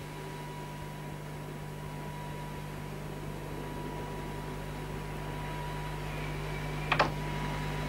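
Steady hiss and mains hum with a faint high whine, the background noise of an old film soundtrack, broken by one brief click about seven seconds in.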